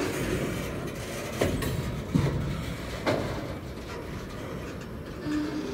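Loaded ballast hopper cars of a CSX freight train rolling past, with a steady low rumble and a few sharp wheel clicks over the rail joints.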